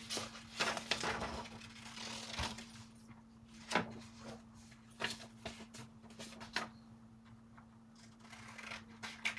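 Sheets of paper being handled on a tabletop: rustling and sliding in the first few seconds, then scattered light taps and clicks, over a faint steady hum.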